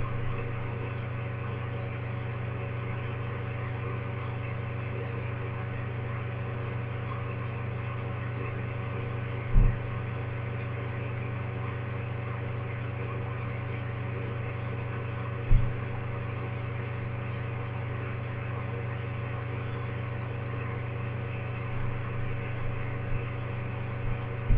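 A steady low hum, with two short dull thumps, one about ten seconds in and one about sixteen seconds in.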